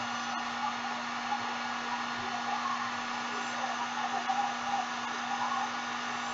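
Handheld hair dryer blowing steadily, a rush of air over a steady low hum, drying wet acrylic paint.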